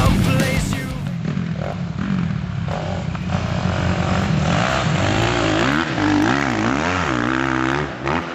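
Motocross dirt bike engine running and being revved, its pitch rising and falling several times in the second half. The tail of a rock song cuts off about a second in.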